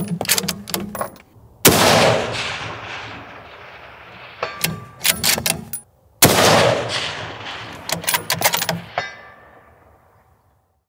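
Two shots from 6.5 Creedmoor bolt-action rifles, about four and a half seconds apart, each report rolling away over a couple of seconds. Short metallic clicks of a bolt being worked come before and after the shots.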